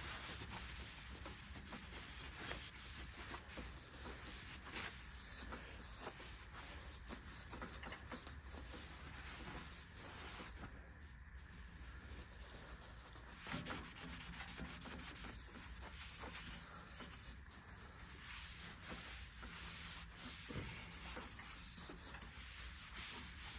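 Faint, steady rubbing of a pad or paper towel being wiped back and forth over the bandsaw's table, cleaning off rust and grime.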